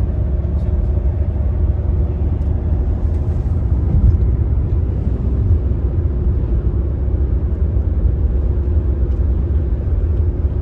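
Road noise inside a car cruising on a motorway: a steady low rumble of tyres and engine heard from the cabin.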